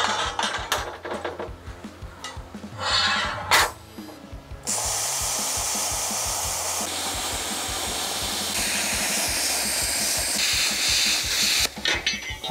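Steel plate knocking and clattering as it is handled on a steel bench, with one loud knock near the middle of the first few seconds. Then, about five seconds in, a gas cutting torch starts cutting the plate: a steady hiss that shifts in tone a few times as the cut moves along and stops shortly before the end.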